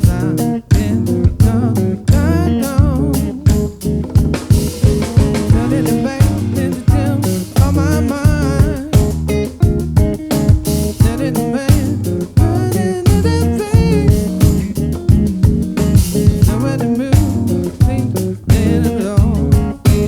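Live band playing a funk-soul groove: bass guitar, guitar, keys and drums keep a steady beat, with a wavering lead melody line coming in at intervals over the top.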